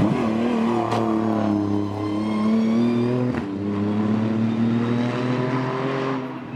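Hillclimb race car engine under hard acceleration, its pitch climbing steadily and dipping briefly at gear changes near the start and about three and a half seconds in.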